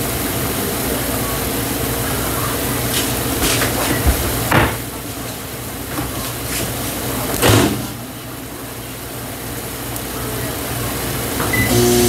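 Steady kitchen hum with a few short knocks and clatters of pots and utensils on the stovetop, about four seconds in and again near eight seconds.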